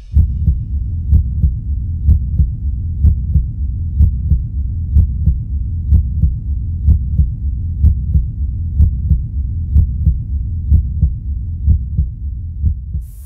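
Heartbeat sound effect: a steady double thump, lub-dub, a little under once a second, over a low rumble.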